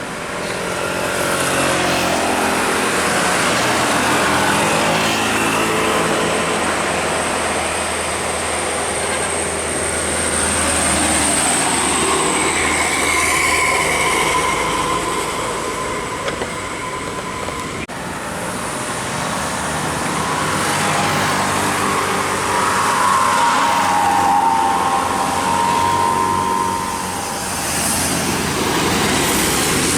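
Large buses' diesel engines running and passing close by, with a few drawn-out high tones standing out over the engine noise in the middle and later on.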